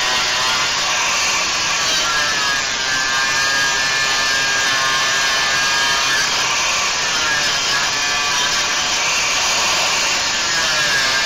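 Power tool working on a steel frame rivet, running steadily with a whine that dips and recovers in pitch as it is loaded.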